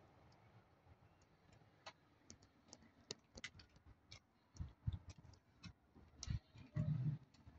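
Faint, irregular light clicks and ticks, joined from about halfway in by a few soft low thumps.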